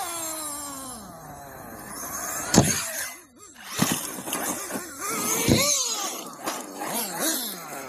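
Nitro-engined RC cars running. One engine's pitch falls away early on, and about two and a half and five and a half seconds in a car whizzes close past, its pitch sweeping sharply.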